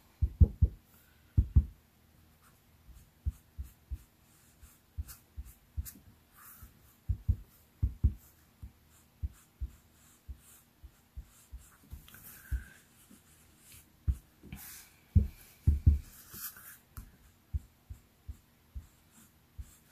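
Back of a spoon rubbed and pressed over cardstock laid on an inked stamp, burnishing the image to fill in the white spots. Soft scraping comes and goes, with irregular dull knocks against the work surface.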